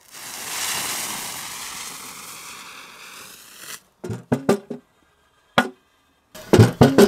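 Lit fuse of a Jorge smoke bomb hissing as it burns, starting suddenly and fading over about four seconds. Then a few short, sharp clicks and knocks, with abrupt cuts to silence between them.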